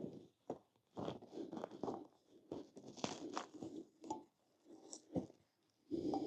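Hands working a rubber scooter tire off its small rim: irregular rubbing, scraping and crunching, broken by a few sharp clicks.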